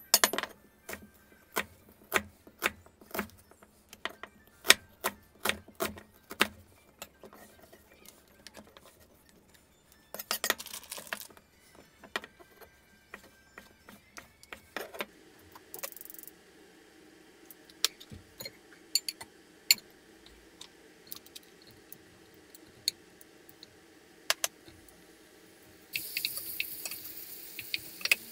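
Kitchen knife chopping on a wooden cutting board, about two sharp knocks a second, then slower, scattered cuts. Partway through, a steady low hum comes in. Near the end, bacon starts sizzling in a hot saucepan.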